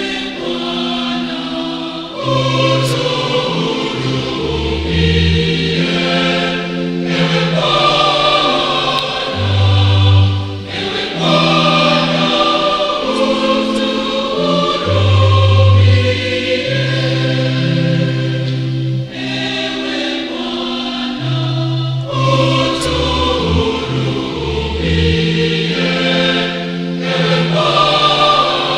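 Church choir singing a Mass setting in several parts: held chords over a low bass line that moves to a new note every second or two.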